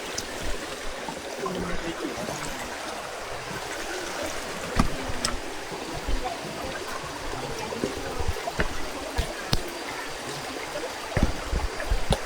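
Stream water flowing steadily, with a few sharp knocks at intervals, the strongest about five seconds in and near the end.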